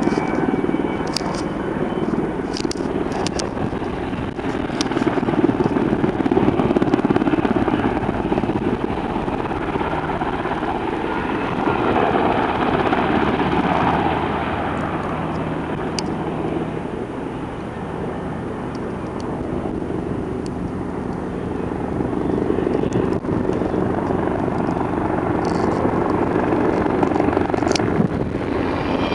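Helicopter rotor and engine noise, steady throughout, swelling a few seconds in and again around the middle, with a few faint clicks.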